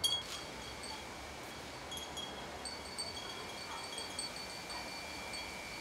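Outdoor ambience: a steady hiss with a faint constant high tone, and short high-pitched chiming or chirping notes repeating at a few fixed pitches. It cuts off suddenly near the end.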